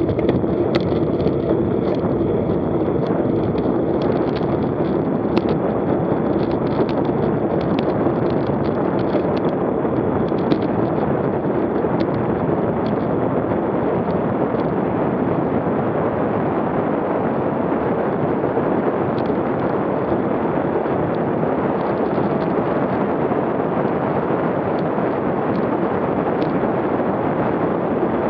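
Steady wind rush over the microphone of a bicycle-mounted camera while riding at about 15 to 26 mph, with faint light ticks in the first half.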